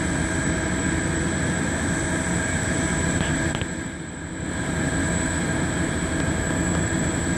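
Steady machinery whine over a low rumble from a parked Boeing 747 freighter and its ground support equipment during loading. The sound dips briefly about halfway through.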